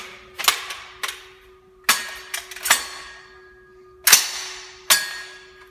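Gunshots at an indoor shooting range, about half a dozen sharp reports at irregular intervals, each ringing out in the concrete bay; the loudest comes about four seconds in. A faint steady hum runs underneath.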